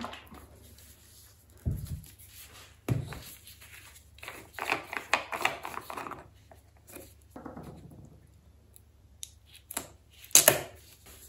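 A plastic bottle of resin being opened by gloved hands: two knocks, then rustling and scraping as the screw cap is twisted off, and a short, loud, sharp noise near the end at the seal under the cap.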